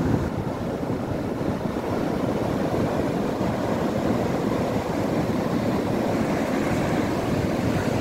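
Rough ocean surf breaking and washing up a sandy beach: a steady rush of white water, with wind rumbling on the microphone.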